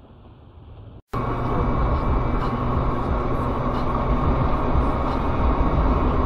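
Steady car cabin noise of driving: a faint hum for about a second, then, after an abrupt cut, much louder steady tyre and engine noise at highway speed, heavy in the low end.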